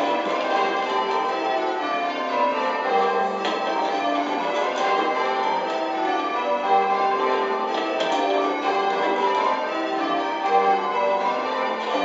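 Eight church bells rung in changes, Spliced Surprise Major: a steady, even stream of overlapping bell strikes, heard from the ringing chamber beneath the bells.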